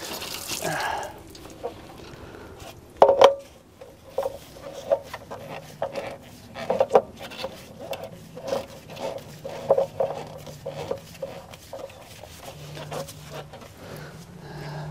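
Irregular light knocks, clicks and rattles as a spin-on fuel filter is handled and fitted onto its filter head in a diesel truck's engine bay, with a brief rustle at the start. A faint low hum comes in around midway.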